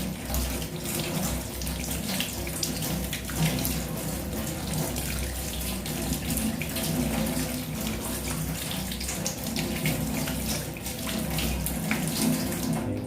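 Kitchen tap running steadily, the water splashing over a lemon being rinsed by hand under the stream.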